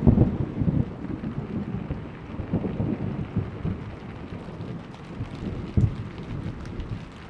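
Thunder rumbling and crackling over steady rain, dying away over the first couple of seconds. A further sharp crack of thunder comes about six seconds in.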